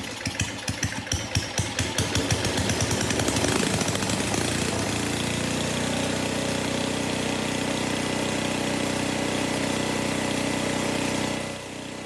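The four-horsepower engine of a classic Craftsman snowblower, just started on full choke and full throttle, running unevenly for the first few seconds and then settling into a steady run. Its sound drops away about half a second before the end.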